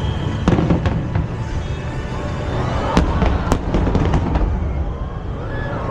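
Fireworks display: a continuous low rumble of shell bursts with sharp bangs, the clearest about half a second in and around three seconds in, with the show's music under it.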